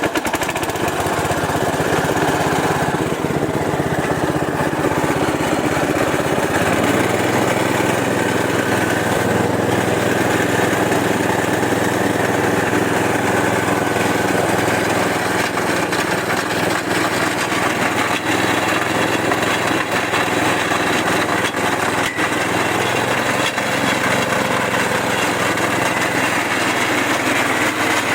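Wet-process coffee pulping machine running steadily on test, its drive sounding like a small engine. Its tone shifts about seven seconds in.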